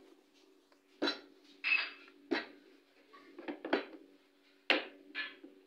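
Wooden rolling pin knocking and rolling against a stainless-steel worktop as paratha dough is rolled out: several short sharp knocks, about one a second, over a steady low hum.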